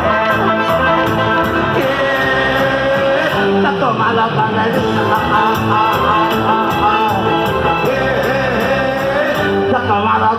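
Music with guitar and a singing voice, with a steady beat.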